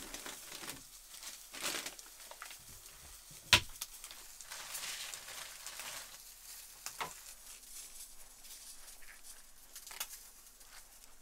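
Kitchen handling noises: scattered light knocks and the crinkling of a food package being handled, with one sharp knock about three and a half seconds in.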